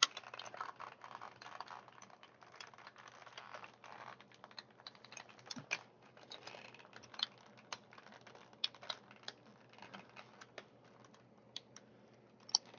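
Toy packaging being cut and pried open with a knife: irregular small clicks, scrapes and rustles of plastic and cardboard.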